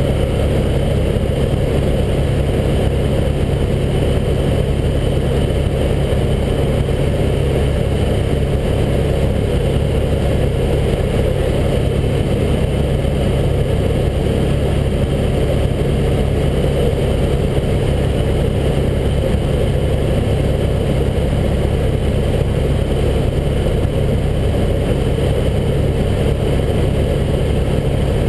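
Helicopter in flight heard from inside the cabin: engine and main rotor running at a steady pitch, a loud constant low hum that does not change.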